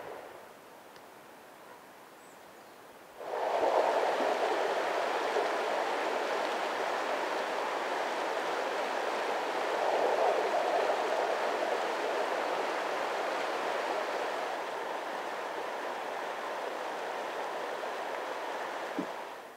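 Mountain stream flowing over stones: a steady rush of water that starts suddenly about three seconds in, after a quieter stretch, and stops just before the end.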